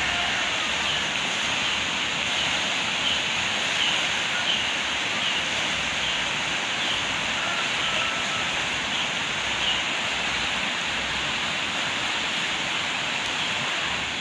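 Steady rushing of a river in flood, its muddy water overflowing into the surrounding yards, with faint short high chirps about once a second above it.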